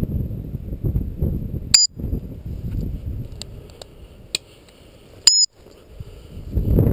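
Two short, high beeps, each holding two steady pitches, about three and a half seconds apart; they are the loudest sounds, with a few faint clicks between them. Around them is a low rumble of wind on the microphone and rustling in dry grass, which dies down after the start and picks up again near the end.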